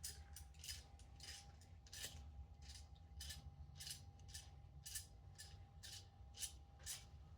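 Hand socket ratchet clicking in short strokes, about two a second, as 8 mm valve cover bolts are worked loose. A faint steady hum runs underneath.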